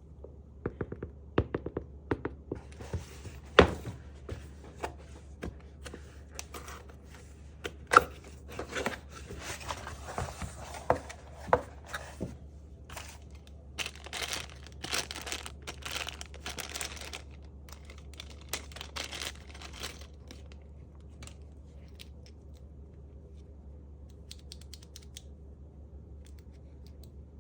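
Keyboard packaging being opened and handled: plastic and paper crinkling and tearing, with scattered sharp knocks and clicks. It dies down about twenty seconds in, leaving a low steady hum.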